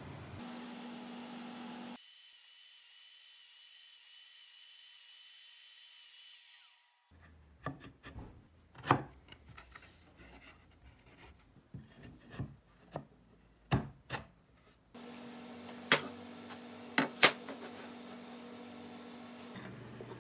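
Hardwood pieces being handled and set down on a wooden workbench: a series of sharp wooden knocks and clicks, the loudest about 9, 14 and 17 seconds in, with light rubbing between them over a steady low shop hum.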